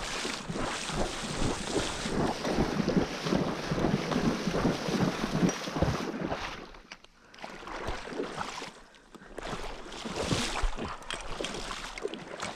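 Water splashing and sloshing in uneven strokes, with wind on the microphone. It drops away briefly about seven and nine seconds in.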